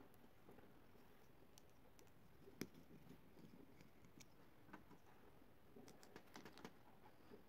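Faint small clicks and taps from handling a two-pin plug, its wires and a small screwdriver while the wires are fastened into the plug's terminals. The sharpest click comes about two and a half seconds in, and a quick run of clicks comes near the end.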